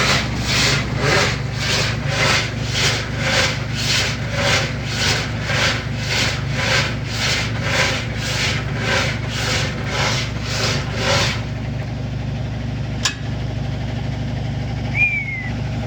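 General Electric washer running, its tub scraping against the sheet-metal panel about twice a second: the metal is being rubbed because the weight of the water pulls the tub against it. The scraping stops about eleven seconds in, leaving a steady low motor hum, with a single click a little later.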